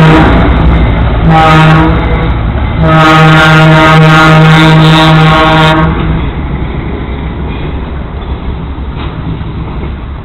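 Alco RS-32 diesel locomotive sounding its air horn: a blast that ends just after the start, a short blast, then a long blast of about three seconds, the close of the long-long-short-long grade-crossing signal. Its diesel engine runs loudly underneath and carries on after the horn stops.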